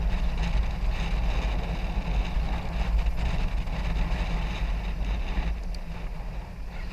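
Wind rushing and buffeting over a helmet-mounted microphone, with the tyres rolling on asphalt, as a motorcycle coasts downhill with its engine switched off. The rush eases over the last couple of seconds as the bike slows.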